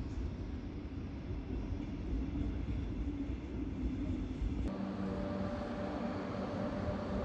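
A DB class 424/425/426-family electric multiple unit running with a steady low rumble. About two-thirds of the way in the sound switches abruptly to a brighter hum with steady held tones.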